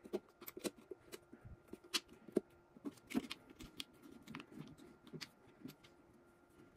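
Light, irregular clicks and ticks of a folding hex key set: a 3 mm hex key turning a screw out of the top of a key cutter's casing, and the keys rattling as they are handled.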